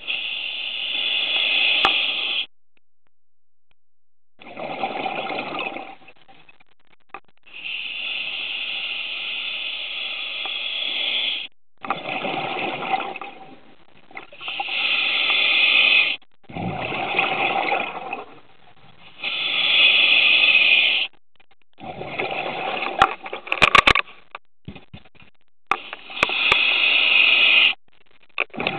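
A scuba diver breathing through a regulator underwater: hissing inhalations alternating with rushing bursts of exhaled bubbles, one every few seconds, with short gaps between. There are a few sharp clicks about two-thirds through.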